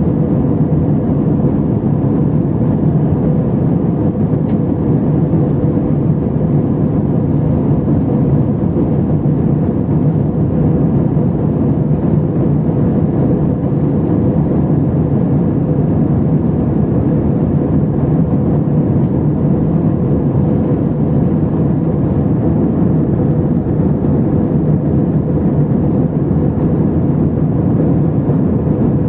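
Airbus A320 cabin noise in flight: the steady rush of engines and airflow heard from a window seat, with a faint constant hum under it.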